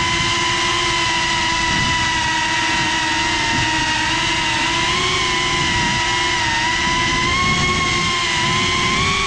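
GePRC Cinelog 35 FPV drone's brushless motors and propellers whining steadily as it hovers, picked up close by its onboard GoPro. The pitch wavers slightly and edges up a little with throttle, about halfway through and again near the end.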